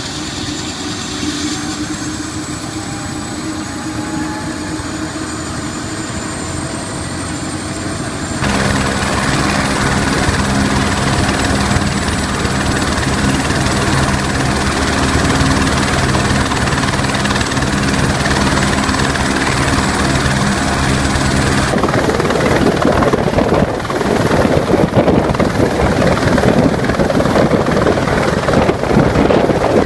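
Helicopter turbine engine and rotor running at close range. For the first eight seconds a whine rises in pitch as the engine spools up. After an abrupt cut the sound is louder, with a strong low rotor beat, and from about two-thirds of the way in it turns into a rough, noisy rush of rotor wash.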